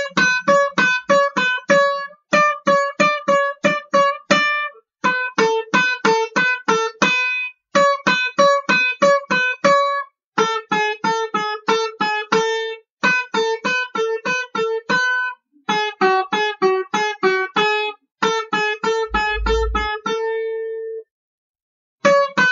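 Solo banjo music: quick, evenly picked notes at about five a second, played in short phrases of two to three seconds that each stop abruptly with a brief gap. A short low rumble sounds under the music about three-quarters of the way through.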